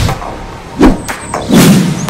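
Edited-in transition effects: a whoosh, then two deep booming hits less than a second apart, leading into the intro instrumental.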